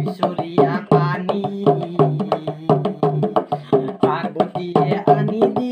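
A man singing an Assamese Shiva devotional song, accompanying himself with quick, even hand strokes on a small dhol drum.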